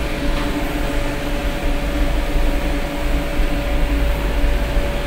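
Steady machinery and ventilation hum in a ship's galley: a constant low rumble and rush of air under a drone of two steady tones.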